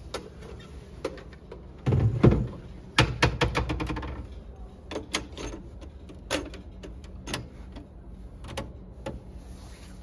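Sanyo CD-cassette boombox being handled: a thump about two seconds in, then a series of plastic clicks and clunks as its cassette door and keys are worked to load a tape.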